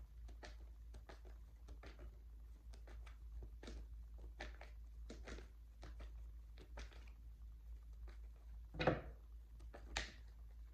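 Quiet room tone with a steady low hum and many faint scattered ticks and rustles. A louder knock comes about nine seconds in, and a smaller one a second later.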